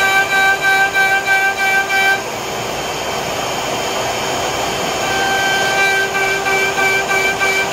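CNC router's trim-router spindle running at speed with a steady high whine, cutting grooves into a hardwood board. About two seconds in the whine gives way to a rougher cutting noise, and after a few seconds the steady whine returns.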